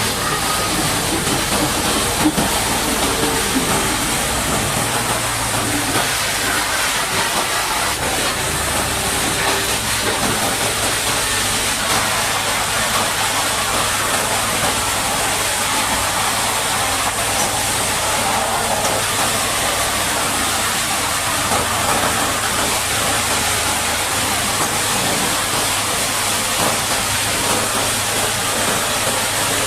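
High-pressure water jet spraying steadily with a loud hiss, washing mud off a bulldozer, over a steady low machine hum.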